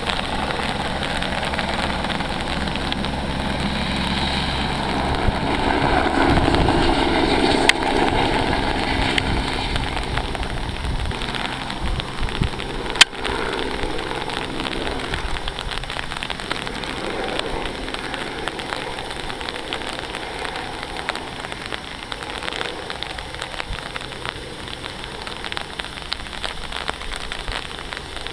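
A Eurocopter AS350 Ecureuil single-turbine helicopter flying with an underslung lime-spreading bucket: rotor and turbine sound growing louder to a peak about six to eight seconds in, then slowly fading as it moves away. A steady crackly hiss runs underneath, with a sharp click about thirteen seconds in.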